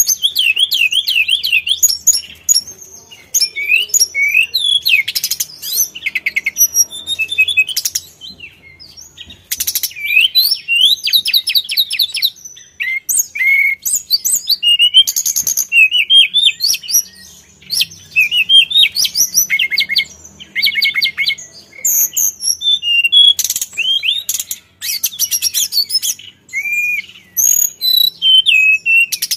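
Male hill blue flycatcher (Indonesian 'sulingan' or 'tledekan gunung') singing a long, varied, high-pitched song of fast trills, slurred up-and-down whistles and rapid repeated notes, with a few short breaks. This is the full, vigorous 'gacor' song that keepers play to train other songbirds.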